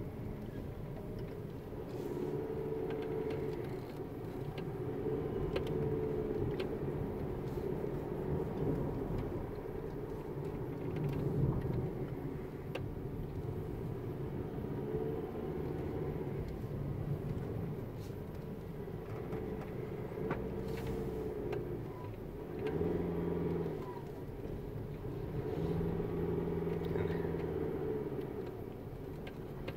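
Car engine and tyres heard from inside the cabin while driving up a narrow, winding road, the engine note rising and falling every few seconds, with scattered small clicks and rattles.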